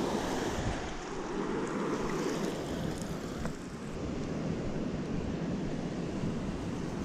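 Ocean surf washing up the beach, with wind buffeting the microphone.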